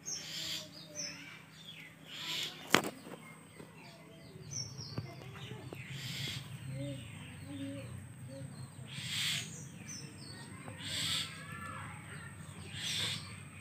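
Small birds chirping in the background, with a few short rustling noises every couple of seconds and one sharp click about three seconds in.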